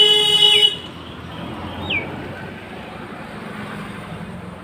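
A vehicle goes by: a short steady horn tone at the start, then road noise that swells and slowly fades. A bird chirps once about two seconds in.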